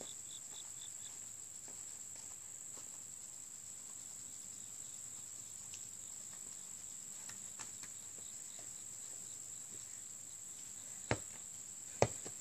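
A steady, high-pitched insect chorus. Near the end, two sharp knocks about a second apart as a basketball bounces on packed dirt.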